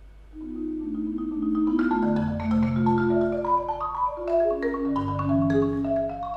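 Solo concert marimba played with mallets: a soft passage of sustained, overlapping notes begins just after the start. Deep bass notes come in about two seconds in and again near five seconds.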